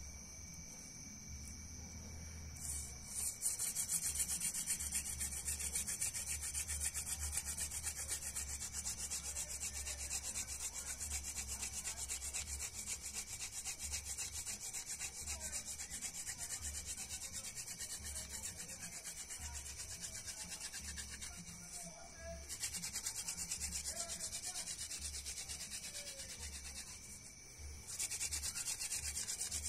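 A wooden hand-drill spindle is spun back and forth between the palms, grinding into a wooden hearth board with a rapid, dry, scratchy rubbing. It starts a few seconds in and runs in three long spells, with two brief pauses later on. By the end the friction has the wood dust smoking, the stage before an ember forms.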